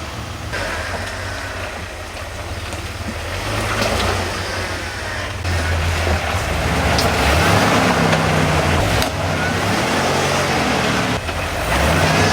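A lifted off-road Jeep's engine running. It gets louder about halfway through, then revs up and down repeatedly as the driver works the throttle.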